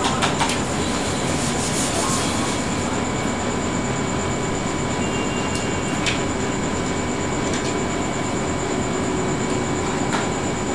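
Steady machine-like rushing noise with a thin high whine running under it, and a few light clicks near the start, about six seconds in and about ten seconds in.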